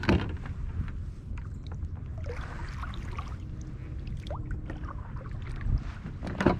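Kayak paddle working the water, with splashing and dripping about two seconds in. A sharp knock comes at the start and another near the end.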